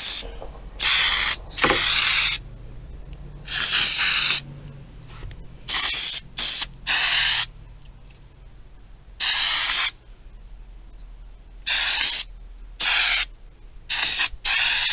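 Aerosol spray can of rubberized coating spraying in about a dozen short hissing bursts with brief pauses between them.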